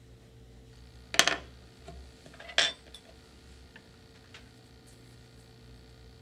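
Two sharp clatters about a second and a half apart, the first with a short rattle: hard sculpting tools being set down or picked up on a work table.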